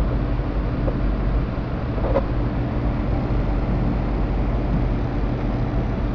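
Small Stirling engine driving a toy tracked tank, running steadily with a continuous mechanical hum. Its tracks ride over metal tools, with a couple of light knocks about one and two seconds in.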